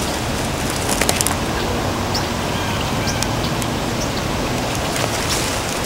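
Steady outdoor hiss with small rustles and clicks in dry brush, bunched about a second in and again near the end.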